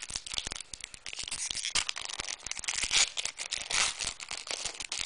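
Foil trading-card pack wrappers crinkling and cards being handled: a dense run of small clicks and rustles, with a few louder crinkles.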